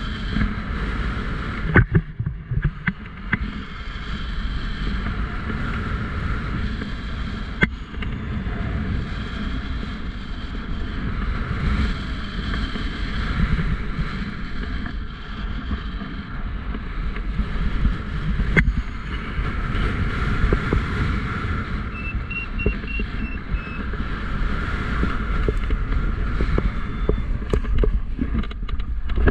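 Strong airflow buffeting the microphone in flight under a paraglider, a steady rumbling rush with a few sharp knocks. About two-thirds through, a short run of high beeps, like a flight variometer's climb tone.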